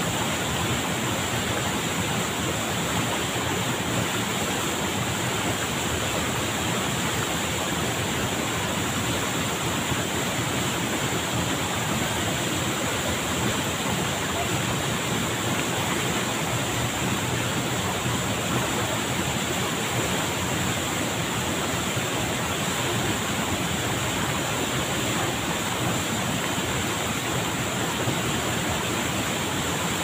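Batu Santek waterfall pouring into its rocky plunge pool: a steady, even rush of falling water.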